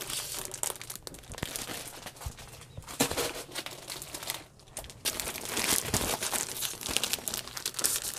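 Clear plastic packaging of cross-stitch kits crinkling and rustling in irregular bursts as one kit is lifted away and another laid down on a table. It grows louder about three seconds in.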